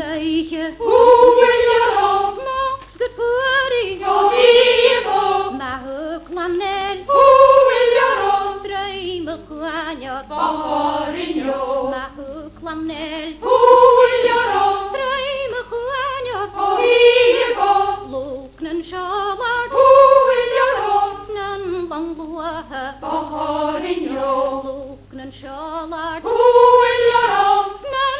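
Unaccompanied singing: a woman's voice carries a slow melody in phrases of a few seconds, with wavering held notes.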